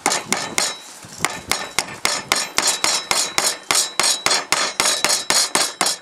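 Hammer tapping a small nail through a sheet-aluminium roof covering into a pine birdhouse roof. It is a rapid run of light, sharp strikes, about four a second, with a short pause about a second in.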